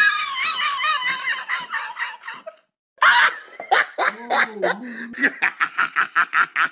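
A thin, tinny, wavering laugh with no low end, stopping about two and a half seconds in; after a short silence a person laughs in quick, even bursts, about three or four a second.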